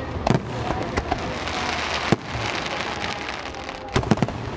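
Aerial firework shells bursting with sharp bangs, one at a time early on and then a quick cluster of three near the end, with a dense crackling hiss in the middle.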